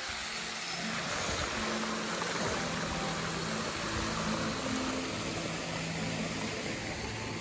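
Fountain jets splashing into an ornamental pond: a steady rush of falling water.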